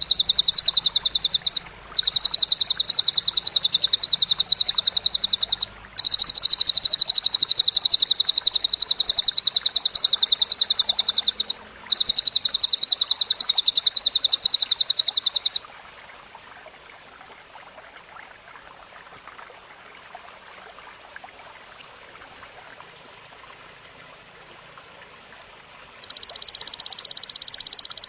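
High, shrill, rapidly pulsed buzzing trills of cililin and belalang (grasshopper) calls from a bird-training recording. They come as four long bursts separated by brief breaks, then stop for about ten seconds, leaving only a faint hiss. A new, slightly lower buzz starts near the end.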